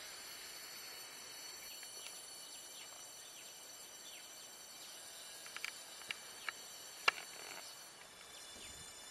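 Outdoor ambience: a steady high insect drone, with short, high, downward-sliding bird chirps dotted through it. A few sharper, louder chirps come in the middle, the loudest about seven seconds in.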